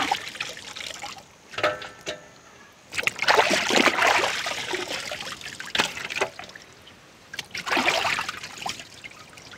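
Water splashing and dripping as washed whole raw chickens are lifted from a large aluminium pot of water and hung over a pot's rim to drain. The splashing comes in separate bursts, the longest about three to four seconds in, with water trickling off the birds between them.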